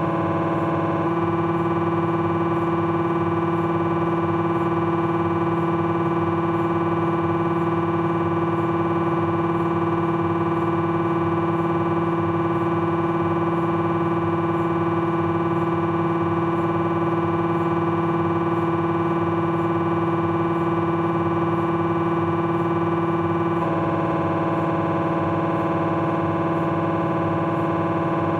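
Philips 1.5 T MRI scanner's gradient coils buzzing during a T1-weighted axial fat-saturated sequence: a loud, continuous, pitched drone with a strong hum. Its texture changes slightly about a second in and again near the end.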